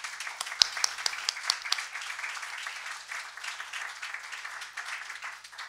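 Audience applauding, many hands clapping together, with a few sharper single claps in the first couple of seconds; it tapers off near the end.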